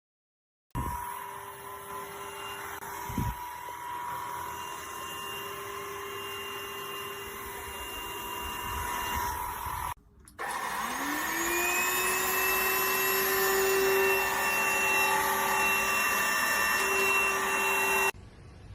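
Dibea H008 cordless vacuum cleaner's motor starting and running with a steady whine, with one knock a couple of seconds in. About ten seconds in it cuts out briefly, then spins up again with a rising whine and runs louder until it stops abruptly near the end.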